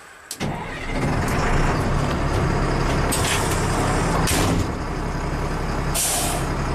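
The diesel engine of a 1996 LMTV military truck (Caterpillar 3116 turbo-diesel) starting about a third of a second in and settling into a steady idle. A few short hisses come through over the engine.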